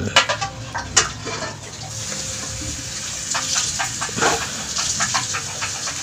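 Plastic and metal parts of an electric kettle's base connector clicking and knocking as they are handled and fitted back into the stainless steel kettle's underside. There are sharp clicks about a second in, then a run of small clicks a few seconds later.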